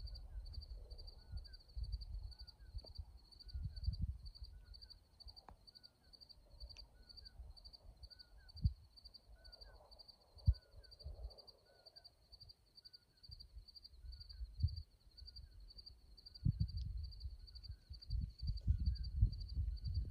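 A cricket chirping in a steady, even rhythm, with a fainter lower note repeating about once a second. Gusts of wind buffet the microphone near the start and again near the end.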